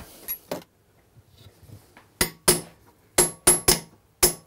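Small hammer striking a steel punch held on a steel armor plate, stamping a mark into the metal. There is one tap near the start, then a quick run of sharp, ringing metallic taps from about halfway.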